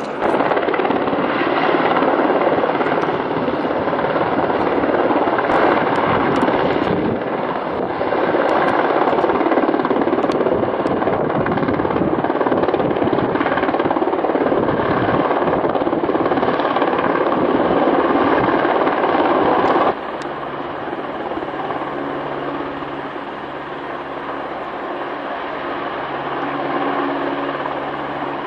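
PZL W-3 Sokół twin-turbine rescue helicopter flying close by: a loud, steady rushing of rotor and turbine noise. About two-thirds of the way in it drops suddenly to a quieter steady hum with a low drone underneath.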